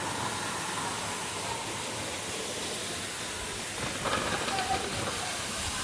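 Waterfall: rushing water making a steady hiss.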